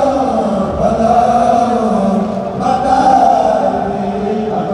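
Male voices chanting a Mouride religious chant (khassida) together, in long drawn-out held notes that shift pitch every second or so.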